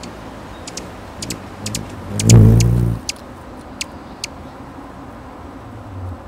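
Female Allen's hummingbird's wings humming loudly for under a second as she flies in and settles onto her nest. Several short, very high ticks come before and after it.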